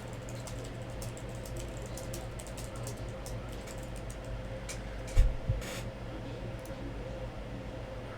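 Typing on a computer keyboard: a run of quick key clicks over a steady low hum, with one loud thump about five seconds in.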